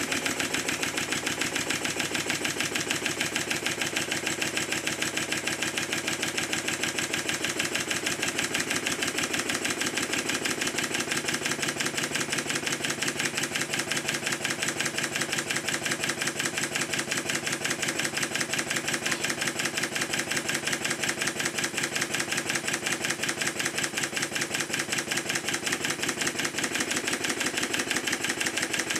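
Stuart triple expansion model engine running slowly and steadily on compressed air at low pressure, a rapid, even beat of its exhausts and valve gear. It is being run in, flooded with oil, to bed its piston rings to the cylinders.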